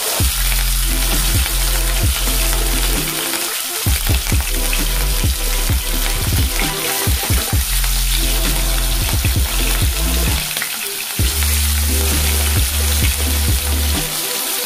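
Pieces of marinated rohu fish sizzling and crackling as they fry in hot mustard oil in a non-stick kadai over a medium flame, with more pieces being laid into the oil. A low background music track runs beneath the frying.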